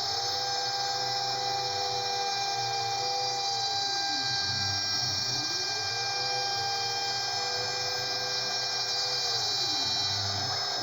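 CNC router cutting wood: the spindle runs with a steady high whine, while the stepper motors' tone rises, holds and falls back down twice as an axis speeds up, travels and slows.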